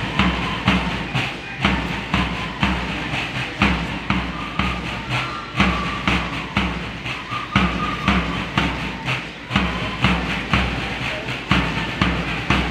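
Marching drums beating a steady rhythm, a heavy thud on each beat, with a short high note sounding now and then.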